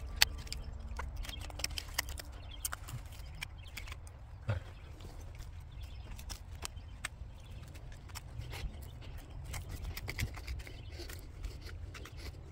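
Fingers scraping and raking through loose, gritty soil and pebbles, giving many small irregular clicks and crackles, with a sharper knock about four and a half seconds in, over a low rumble.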